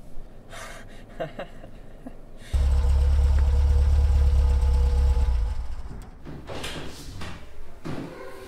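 Small Toyota hatchback's engine running close by: a loud low hum cuts in about two and a half seconds in, holds for about three seconds, then fades away. A few short knocks come before it and again near the end.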